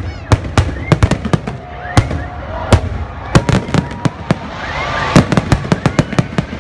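Fireworks display with aerial shells bursting: an uneven run of sharp bangs, some two dozen in all, several coming in quick clusters.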